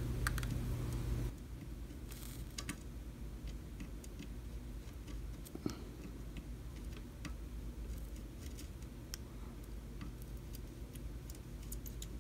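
Soldering iron and copper desoldering braid being rubbed over capacitor pads on a circuit board, giving faint, irregular small clicks and scratches. A steady low hum stops abruptly about a second in.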